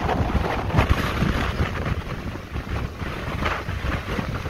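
Wind buffeting the microphone in uneven gusts, a rough low rumble with rushing noise.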